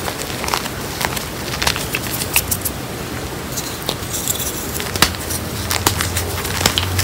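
Hands squeezing and crumbling chunks of reformed gym chalk mixed with cornstarch, giving a run of irregular crisp crunches and crackles as the lumps break into powder.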